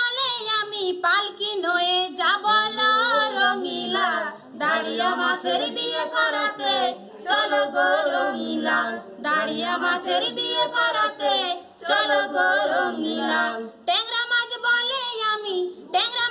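A woman singing a Bengali Patua scroll song (pater gaan) unaccompanied, in sung phrases with short breaks between them.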